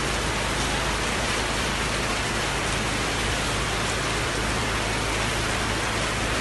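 Heavy rain falling, a loud, steady, even downpour with no let-up.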